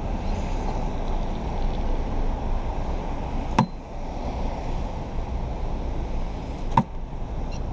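Street traffic on a wet road: cars passing with a steady rumble, and two sharp knocks, about three and a half and about seven seconds in.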